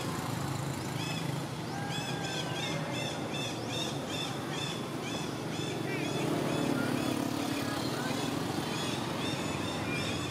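An animal calling over and over: short, high, arching calls, two or three a second, starting about a second in, over a steady low hum.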